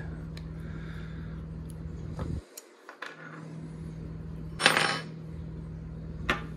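Small metal clicks and clinks as the bolts are taken out of a resin eye-casting mold's metal plates, with one louder clatter about five seconds in.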